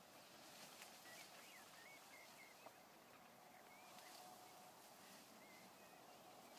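Near silence: faint outdoor ambience with a few distant bird chirps.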